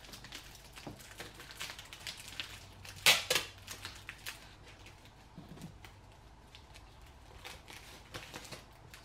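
Roll of packing tape being pulled out and pressed down onto woven plastic feed-bag sheets, with crinkling and crackling of the plastic and one brief, louder rasp about three seconds in.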